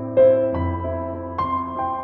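Gentle instrumental background music: slow notes struck one after another, four in all, each left to ring and fade.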